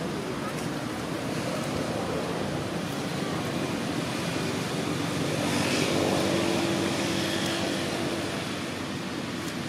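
Steady outdoor background rumble and hiss that swells about halfway through, when a faint low hum joins it.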